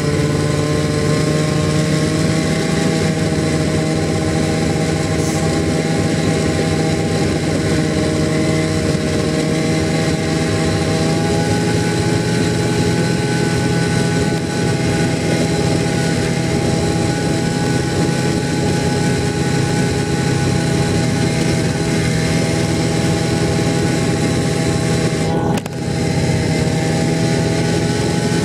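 Snowmobile engine running steadily while riding across snow, its pitch rising slightly over the first several seconds and then holding level. Near the end the sound briefly drops for a moment.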